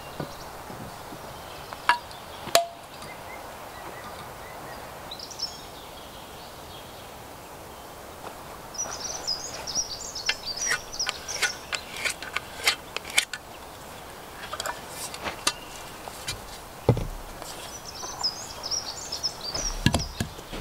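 Scattered knocks and taps of tools against peeled wooden posts while the posts are set and levelled, with two heavier thumps near the end. Small birds chirp high in the background.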